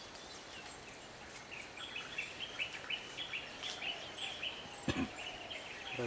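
A small bird singing a fast string of short, high chirps from about two seconds in, over faint outdoor background noise, with a single sharp click about five seconds in.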